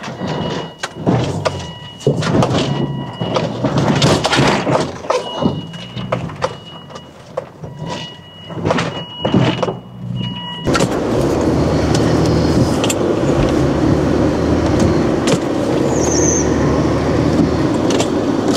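An SUV driving over rough off-road ground: the engine working under load while the body and suspension knock and thump, with short high beeps coming on and off. About ten seconds in it changes suddenly to a steady, even engine and driving noise.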